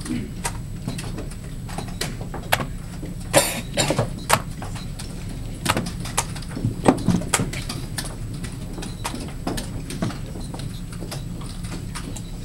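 Irregular clicks and clacks of plastic chess pieces being set down and a chess clock being pressed during fast blitz play, over a steady low hum. The sharpest clicks come in small clusters a few seconds in and again about halfway through.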